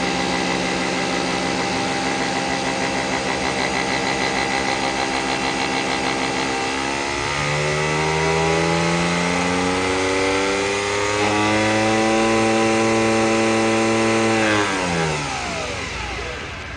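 Nespresso VirtuoLine brewer running its brew cycle: the motor that spins the capsule whirs with a fast pulsing, steps up in pitch twice, then winds down with a falling whine near the end as the brew finishes.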